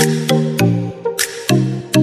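Background electronic music: a steady beat with pitched bass and synth notes.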